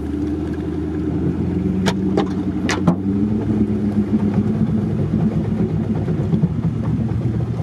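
Jeep engine running at low speed, heard from inside the cabin, as the vehicle wades slowly through a deep muddy puddle with its muffler under water. A few sharp knocks come about two to three seconds in.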